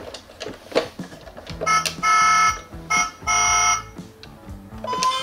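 A toy fire engine's electronic sound unit: a few small button clicks, two steady electronic beeps of under a second each, then a siren beginning to wail upward near the end.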